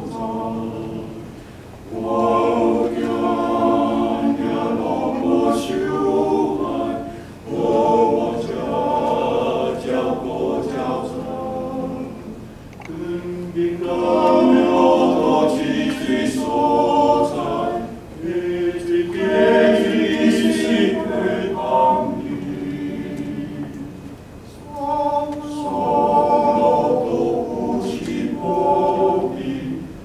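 Male-voice ensemble singing a hymn a cappella in Taiwanese, in phrases of about five seconds with short breaks for breath between them.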